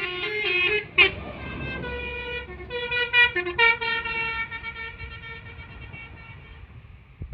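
Tour bus's melodic basuri 'telolet' horn playing a tune in stepped, shifting notes over a low engine rumble, fading away over the last few seconds. A sharp click about a second in is the loudest moment.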